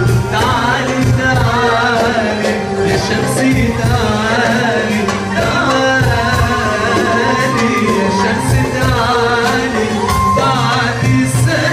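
Live Middle Eastern music with singing, the melody winding in quick wavering turns over a steady accompaniment.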